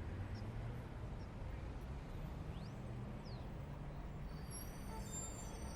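Steady low rumble with a faint hum, with two faint short chirps about halfway through.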